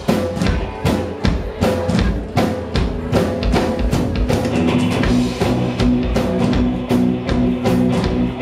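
Live rock band playing an instrumental passage: a drum kit keeps a steady beat under guitar, bass and keyboard, with no singing.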